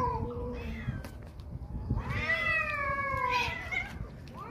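Hungry stray cats meowing at feeding time: the end of one meow at the start, then one long drawn-out meow about two seconds in that rises and then falls in pitch.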